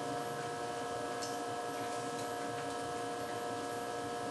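Steady electrical hum made of several level, fairly high tones over quiet room tone, with a couple of faint clicks.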